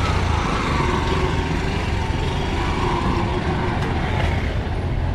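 Road traffic: a motor vehicle's engine running close by over steady street noise.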